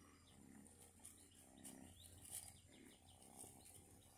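Near silence, with faint soft sounds from a small ginger kitten being petted in grass.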